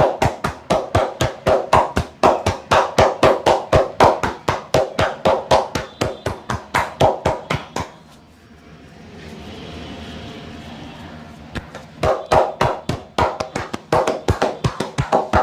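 Rapid rhythmic hand strikes of a head massage, about five a second, the clapped or cupped hands giving a popping, drum-like tap on the head. They stop a little past halfway for a few seconds of softer steady noise, then start again.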